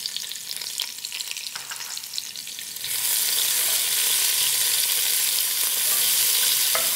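Whole spices crackling in hot oil, then about three seconds in a sudden, much louder steady sizzle as sliced onion goes into the hot avocado oil. The heat seems a little high.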